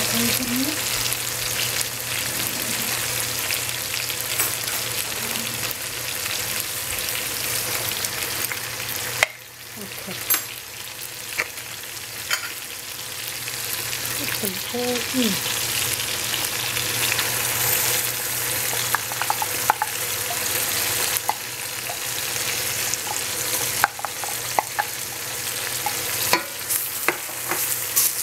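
Eggplant pieces sizzling as they fry in a stainless steel pot, stirred with a wooden spoon that gives light scrapes and knocks now and then. The sizzle drops suddenly about nine seconds in, then slowly builds back up.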